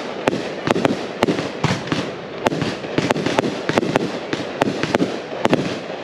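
A 72-shot, 1500-gram firework cake firing in rapid succession: sharp shots about three or four a second over a continuous noisy background.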